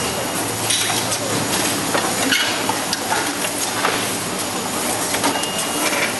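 Net bag packing machine running on a packing floor: a steady mechanical noise and low hum, with irregular clicks and clacks as produce drops into the mesh bags and the bags are clipped shut.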